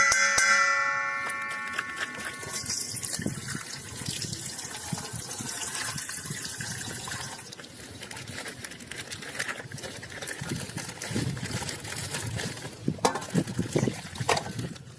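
A ringing chime fades out over the first couple of seconds. It is followed by continuous crackling and rustling from hands handling a toy and its packaging, with a few sharper crackles near the end.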